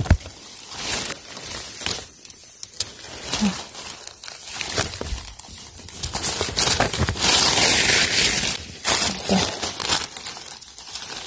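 Dry fallen leaves and twigs rustling and crackling as hands move through the leaf litter picking mushrooms, in irregular crinkles and snaps, with a louder stretch of rustling about seven seconds in.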